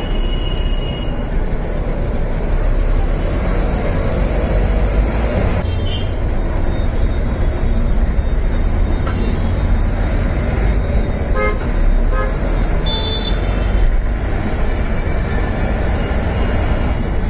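Steady engine and road rumble inside a moving city bus, with a few short horn toots from traffic a little past the middle.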